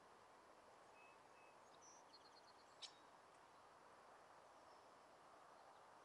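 Near silence: faint outdoor ambience with a few faint, high bird chirps and a quick trill about two seconds in, and a single sharp click near the middle.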